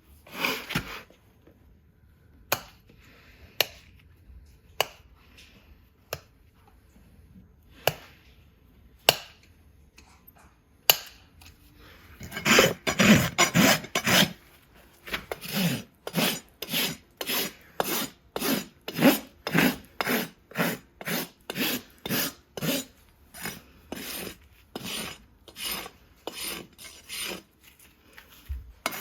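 Farrier's hoof rasp filing a horse's hoof in steady rhythmic strokes, about two a second, starting about twelve seconds in. Before that, single sharp clicks come a second or so apart.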